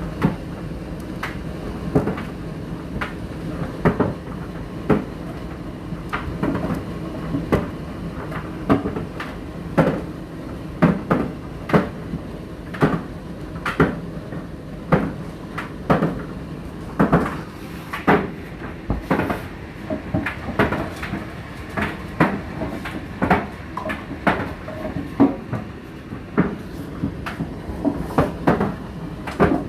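Indesit IDC8T3 condenser tumble dryer running with a steady low hum, the load tumbling in the drum and knocking against it about once or twice a second.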